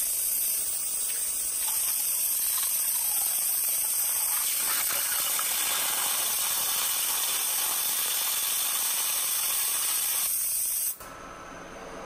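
High-pressure waterjet stream hissing steadily as it blasts through a coffee pod, with water jets spraying out around the cup. The hiss cuts off suddenly about eleven seconds in.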